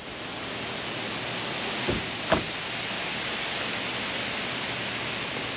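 Steady rushing hiss of wind outdoors, with two short knocks close together about two seconds in.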